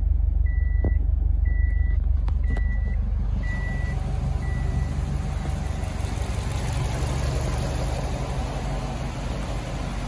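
2006 Subaru STI's turbocharged flat-four engine idling with a steady low drone, running smoothly now that new spark plugs have cured the cylinder-4 misfire. A repeated beep sounds about once a second over it and fades out about four to five seconds in.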